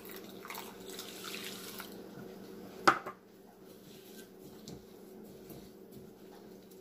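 Water poured from a measuring cup into a glass bowl of seeds for about two seconds, then one sharp knock just under three seconds in as the measuring cup is set down. Faint stirring of the wet seeds with a spatula follows.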